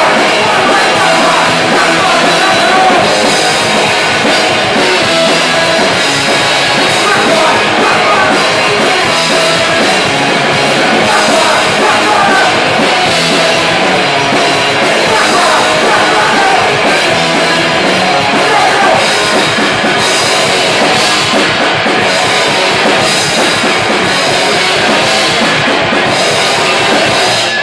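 Punk rock band playing live and loud: electric guitars and a drum kit with cymbals, a singer at the microphone.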